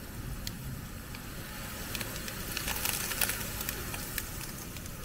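Sausages sizzling on a small electric contact grill, a steady hiss with scattered crackles and a few light clicks of metal tongs, over a low background rumble.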